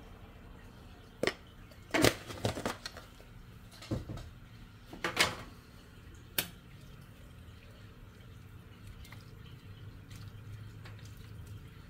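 A cooking utensil clinking and knocking against a pot of soup, about five short clatters in the first six or so seconds, then only a faint low steady hum.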